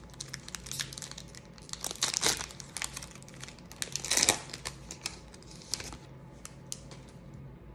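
Foil wrapper of a football trading-card pack crinkling and tearing as it is pulled open by hand, loudest about two and four seconds in, then only a few faint crinkles near the end.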